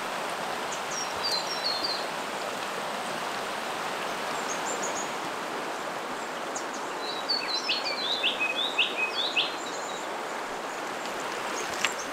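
River water rushing over rocks and small rapids, a steady hiss, with birds calling: a short run of chirps about a second in and a louder series of sharp, quick chirps from about seven to nine and a half seconds.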